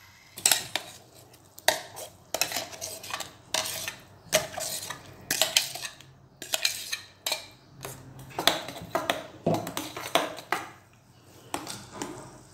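A steel spoon scraping and clinking irregularly against stainless steel bowls as mango pulp is scraped out of one bowl into a bowl of milk and stirred in.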